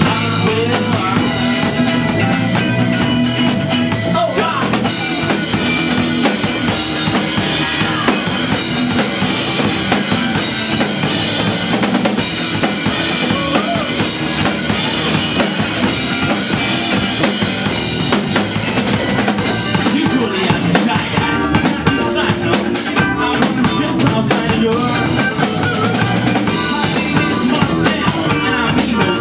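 Rock band playing live, with the drum kit prominent over the guitar and bass: a song played at full volume.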